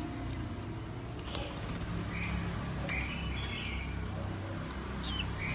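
Caged oriental magpie-robin giving short chirping calls: one about a second in, another soon after, a longer wavering phrase around the middle, and a quick up-and-down note near the end, over a steady low hum.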